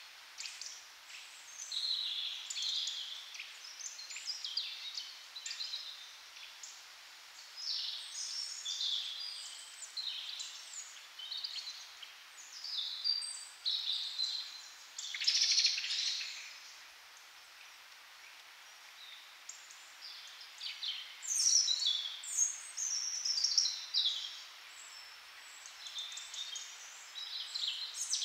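Small songbirds chirping and calling, many short high calls scattered throughout, with a run of quick falling calls about two-thirds of the way in, over faint outdoor hiss.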